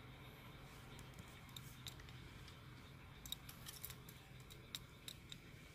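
Near silence: a faint steady low hum with scattered small, sharp clicks, most of them in the second half.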